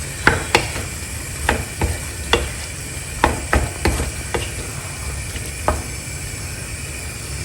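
A spoon stirring potatoes, peas and tomato masala in a pan, knocking and scraping against the pan a dozen or so times at an irregular pace, with the curry simmering underneath.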